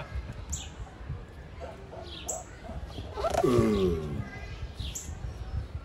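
Male giant tortoise's mating call: one groan, falling in pitch, a little over three seconds in. Birds chirp in the background.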